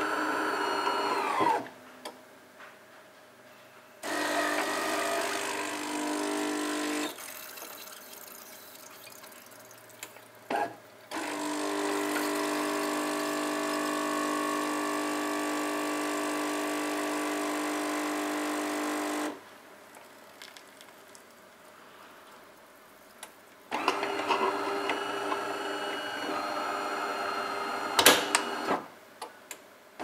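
V-Zug Supremo XSL built-in fully automatic coffee machine making an espresso: its motor and pump run in several spells with quiet pauses between. The longest is a steady hum of about eight seconds while the espresso pours into the cup, and a few clicks come near the end.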